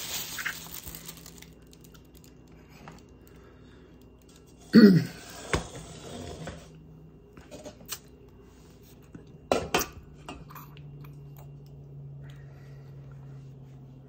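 Kitchen clatter of dishes and utensils being handled: a loud clunk about five seconds in, a few sharp clinks and knocks later, and a steady low hum in the second half.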